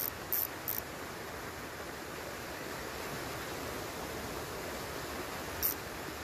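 Steady hiss of outdoor background noise, with a few very short high-pitched zips: two in the first second and one more about five and a half seconds in.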